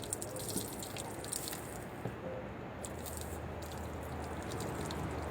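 Hot water dripping and trickling, with scattered small clicks and taps over a steady wash of noise.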